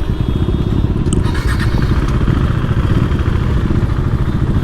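Motorcycle engine running steadily while the bike is ridden slowly, a rapid even pulsing of its exhaust.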